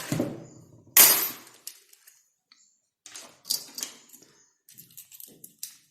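Small hard objects clattering on a workbench as tools and parts are handled: one sharp knock about a second in, then scattered light clicks and rattles.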